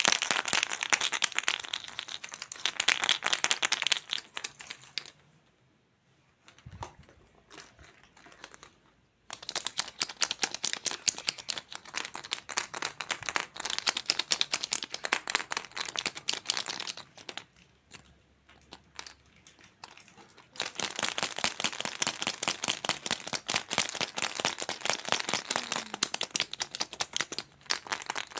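Crinkly plastic being handled and crumpled: dense, rapid crackling in three long stretches with short quieter pauses between.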